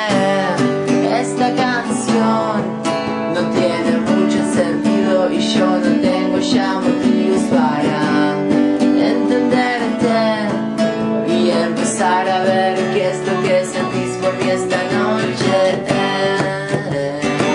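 Acoustic guitar strummed steadily, with a voice singing over it without clear words.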